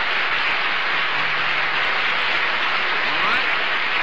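Studio audience applauding, a steady even clatter of clapping from a theatre crowd.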